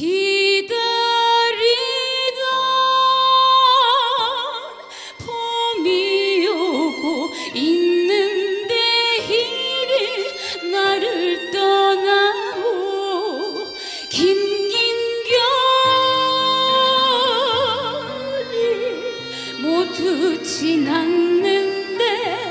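A female trot singer sings a slow ballad over instrumental backing, holding her notes with a wide vibrato.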